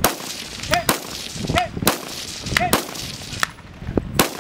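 Rifle shots fired at a steady pace, about five in four seconds, each of the main ones followed less than a second later by a faint distant ring: hits on steel targets far downrange.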